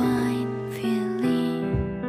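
Soft background music with held notes and guitar.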